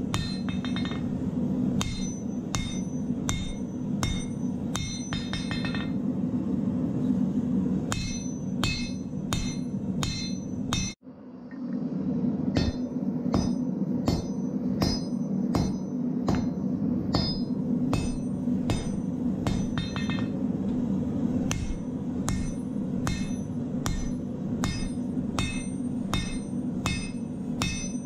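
Blacksmith's hammer striking a glowing steel bar on an anvil in a steady rhythm, about two to three blows a second, each with a metallic ring, as the bolo knife blade is forged. A steady low rumble runs underneath, and the hammering breaks off briefly about eleven seconds in.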